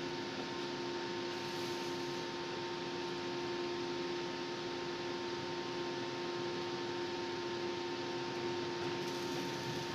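Steady hum made of several constant tones over an even hiss, with no knocks or tool sounds.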